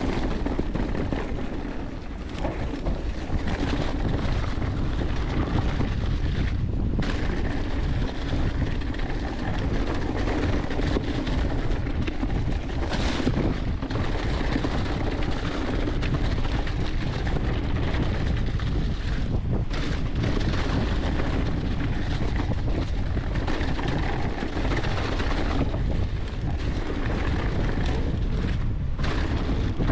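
Mountain bike rolling fast down a trail covered in fallen leaves: a steady rush of wind buffeting the action camera's microphone mixed with the tyres running through the leaf litter.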